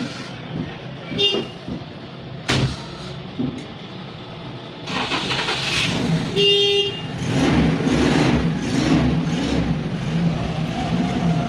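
Road traffic with an engine running, two short vehicle horn beeps about five seconds apart, and a sharp knock between them; the traffic grows louder about halfway through.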